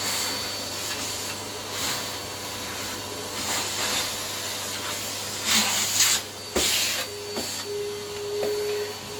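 Vacuum cleaner running steadily, with several louder rushes of airflow around the middle and a few light knocks.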